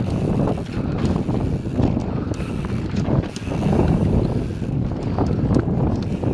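Mountain bike riding a dirt trail. Wind buffets the microphone over a steady rumble of tyres, and the bike gives short irregular rattles and knocks over bumps.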